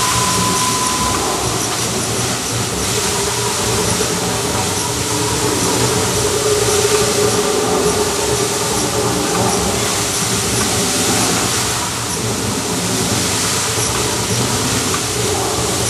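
Water jets of a fountain show spraying and falling back into the basin, a steady rush of water.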